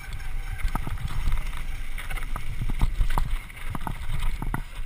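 Mountain bike rolling fast down a dirt trail: low tyre rumble and wind buffeting the microphone, with a steady patter of sharp rattles and knocks as the bike runs over bumps.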